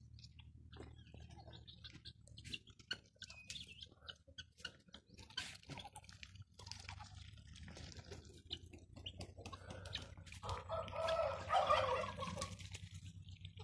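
Muscovy ducks dabbling and drinking at a waterer, with many irregular wet bill clicks and small splashes. A short burst of rapid fowl calling comes about ten seconds in, and is the loudest sound.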